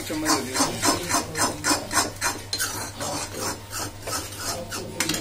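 Steel spoon scraping around a pan while stirring thick cooked instant noodles. It makes about four scraping strokes a second, which turn softer and less regular after about two seconds.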